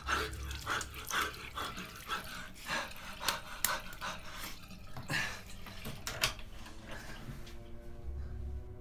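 A man panting and groaning in distress while splashing water from a bathroom sink onto his face, in short irregular bursts. Music fades in near the end.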